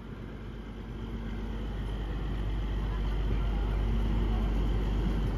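ZDM-5 narrow-gauge diesel locomotive's engine running as the locomotive moves slowly, a steady low rumble that grows gradually louder as it draws closer.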